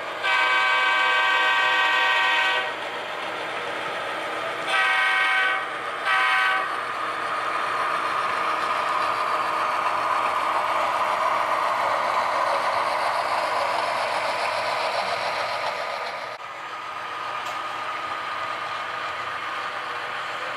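Diesel locomotive horn: one long blast, then two short ones, followed by steady locomotive running noise.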